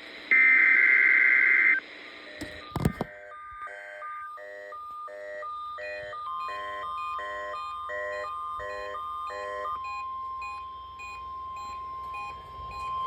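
NOAA Weather Radio emergency alert test: a short, loud burst of SAME digital header tones, a few clicks, then a weather radio's alarm beeping in an alternating two-tone pattern about once every 0.8 s, stopping near ten seconds in. A steady tone begins about six seconds in and carries on.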